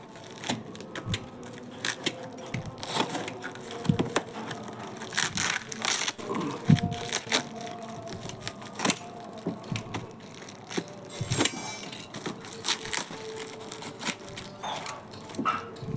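Box cutter slicing through packing tape and cardboard, with irregular crackles and scratches as the tape and paper wrapping tear.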